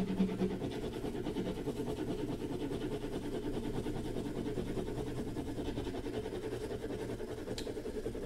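Graphite pencil scribbling over the back of a sheet of printer paper, rapid back-and-forth shading strokes in a steady rhythm, covering a printed silhouette with graphite for a transfer tracing.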